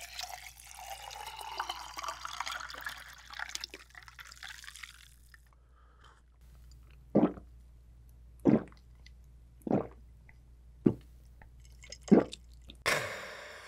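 Vitamin Water poured from a plastic bottle into a glass mug for about five seconds, followed by five loud gulps roughly a second apart as it is drunk.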